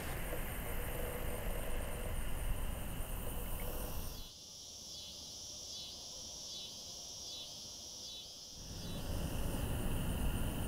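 Outdoor insect chorus: a steady high buzz of insects over low rumbling ambient noise. A few seconds in, the rumble drops away for a quieter stretch in which a pulsing insect call repeats about one and a half times a second. The rumble returns near the end.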